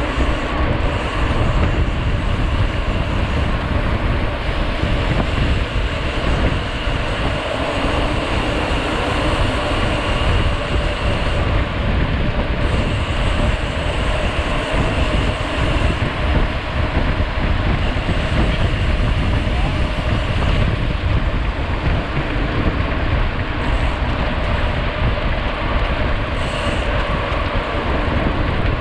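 A mountain bike ridden fast over an off-road trail: steady wind rush on the microphone, with tyre noise and the bike rattling over the ground.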